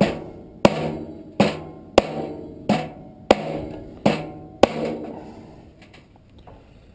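Hammer blows pounding a furnace blower motor to drive it out of its blower wheel: about eight sharp strikes, each ringing out metallically, roughly one every two-thirds of a second, stopping about five seconds in.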